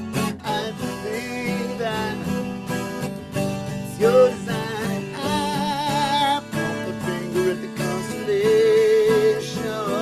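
Acoustic 12-string guitar, the upper neck of a double-neck guitar, strummed in steady chords. A man sings long held notes with vibrato over it, sliding up into one about four seconds in and holding another near the end.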